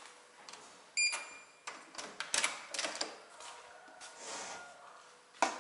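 Hotel room's electronic key-card door lock beeping once as the card is read, then a run of clicks and clunks as the handle is turned and the door swung open, with a sharp knock near the end.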